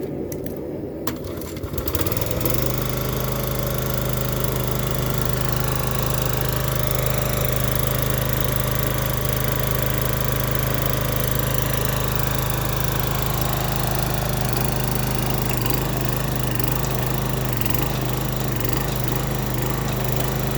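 The small engine driving the hydraulic pump of a log splitter turned forging press, running steadily. It comes up to a steady run about two seconds in, while the press is worked on a hot Damascus billet.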